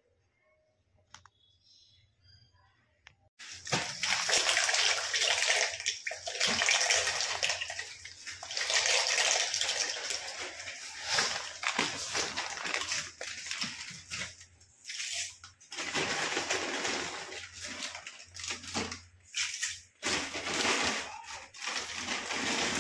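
Pasta boiling in a wide metal pan of water: a loud, rushing, bubbling noise that starts about three seconds in and rises and falls, dropping away briefly a few times.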